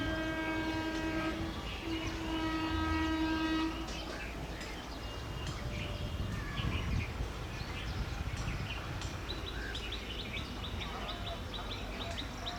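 Train horn sounding twice, a long blast ending about a second in and a second blast of about two seconds, followed by the rumble and wheel clatter of the train running on the track. Short high chirps come in near the end.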